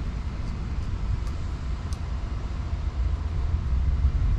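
Low, steady rumble of outdoor background noise, with a couple of faint ticks.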